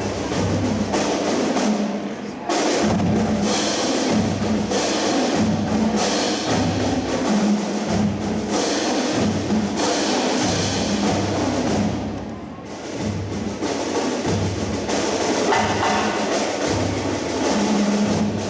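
Marching band percussion section playing, drums with sharp strikes in a steady rhythm over low pitched drum pulses.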